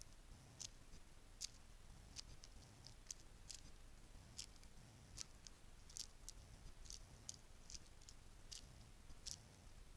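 Bracelets clicking and clinking as they are handled and tapped: soft, sharp, irregular clicks, about two or three a second.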